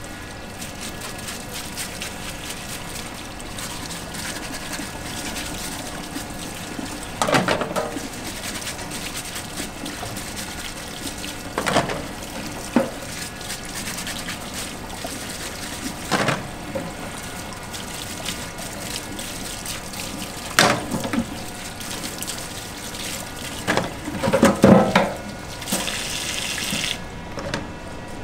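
Tap water running steadily into a stainless steel sink while a crab is scrubbed clean under it with a brush. A handful of short knocks and scrapes stand out, the loudest cluster near the end.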